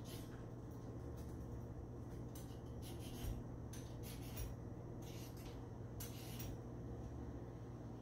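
Vegetable peeler scraping strips off a carrot, a run of short irregular scraping strokes that come thickest from about two seconds in to past six seconds, over a low steady hum.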